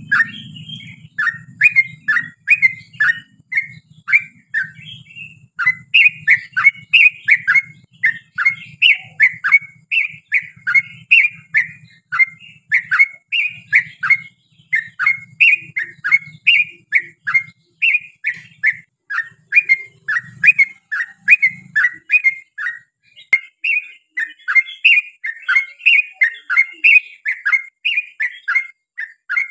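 Yellow-vented bulbul singing a long, rapid run of liquid, downward-sweeping chirps, three to four a second, pausing briefly twice.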